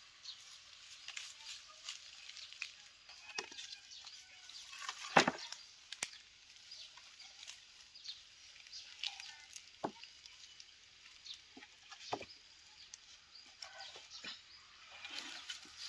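Freshly sawn mango-wood boards knocking against one another as they are handled, a scatter of short wooden knocks with one heavy thump about five seconds in.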